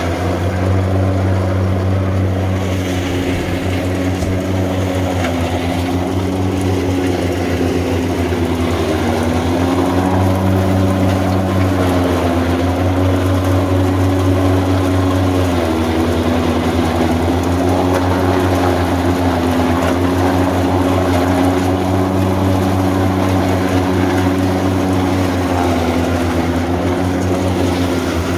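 Tractor engine running steadily at working speed, driving a PTO forage chopper that is being fed corn straw by hand. The engine pitch sags briefly several times as bundles load the chopper, then recovers.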